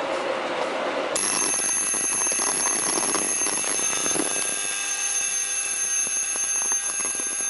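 Electronic fire alarm buzzer switching on about a second in and sounding a steady, unbroken high-pitched tone.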